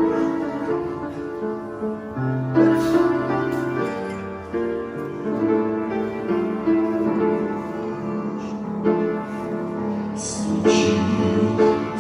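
Piano playing the instrumental introduction to a Russian Baptist gospel song, steady chords and melody notes.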